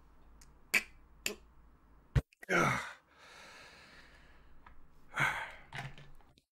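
A man taking a sip of water from a bottle close to the microphone. A few sharp clicks and knocks come from the bottle being handled in the first two seconds, then a breathy exhale, a faint drawn-out sip, and another exhale.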